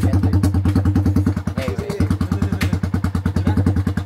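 Yamaha Exciter 150's single-cylinder engine idling through a homemade exhaust muffler made from a drink can, a loud, steady train of exhaust pulses at about eight a second.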